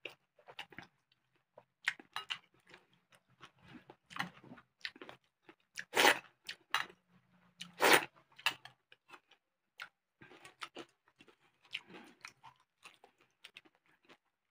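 A person chewing food by mouth close to the microphone, with a run of short crunches and wet mouth clicks; the loudest two crunches come about six and eight seconds in.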